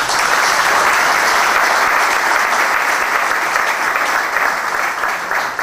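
Audience applauding, dense steady clapping that thins out near the end.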